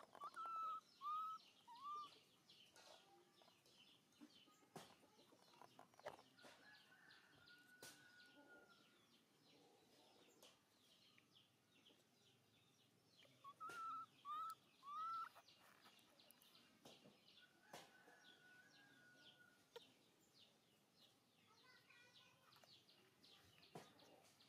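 Faint bird calls: a quick run of four short arched calls near the start and again about halfway through, and a longer held call twice, over light high-pitched chirping.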